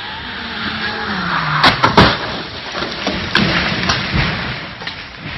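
A car speeding along a rain-soaked road, its tyres hissing through the water and its engine note falling, then crashing off the road. The crash hits about two seconds in and is the loudest sound; a few smaller thuds follow.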